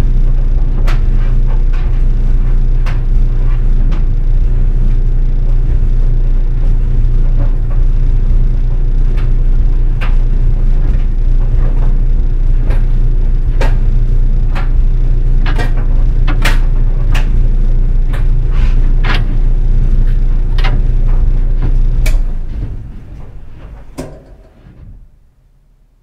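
GE Spacemaker DSKS333E clothes dryer running with a steady low hum, its tumbling drum carrying a load of jeans and towels. The jeans' button and zipper scrape and click sharply against the metal drum at irregular moments. Near the end the running sound dies away over a few seconds, with one last click.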